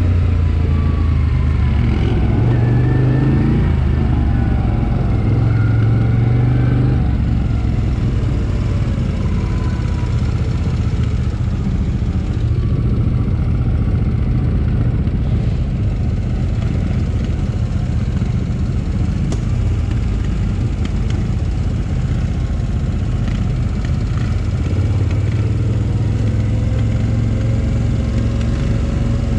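ATV (quad bike) engine running while riding, the revs rising and falling over the first several seconds, then steadier.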